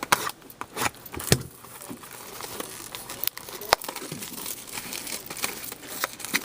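Plastic shrink-wrap and packaging being torn and crinkled as a sealed hobby box of hockey cards is opened, with a few sharp snaps among the crackling.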